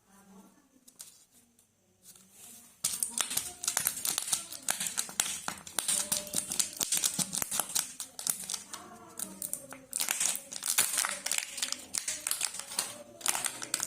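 Foil and plastic wrappers of chocolate surprise eggs crinkling and rustling as they are torn open. It starts about three seconds in and goes on as a dense, rapid crackle.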